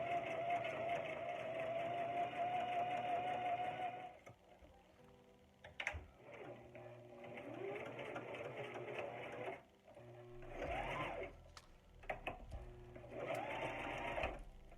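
Brother electric sewing machine stitching hair wefts onto a mesh dome cap: a steady run of about four seconds that stops, then three shorter bursts, each rising in pitch as the machine speeds up, with a few clicks in the pauses.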